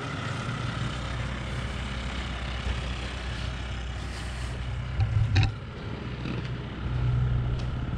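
A motor vehicle engine runs with a steady low hum that swells near the end, with a brief clatter about five seconds in.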